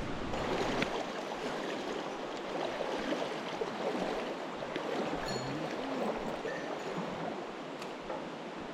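Mountain stream water rushing steadily over rocks, with a few faint clicks.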